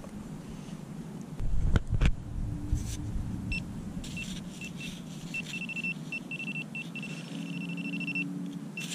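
Garrett Pro-Pointer pinpointer beeping as it is probed through sand over a buried target: short beeps at first, then a near-continuous high tone for a few seconds, breaking back into beeps near the end, which shows the probe closing in on the target. A few low thumps of handling about a second and a half in.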